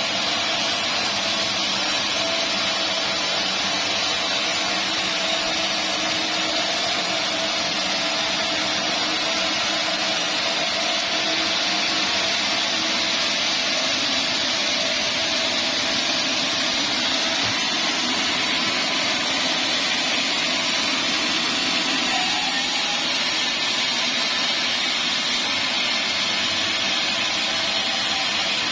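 Band sawmill running steadily with a constant whine, sawing dried teak into boards.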